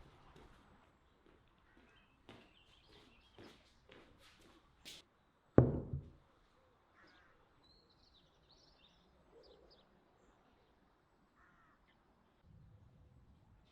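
Birds chirping in the background, with a few light knocks and one heavy thud about five and a half seconds in.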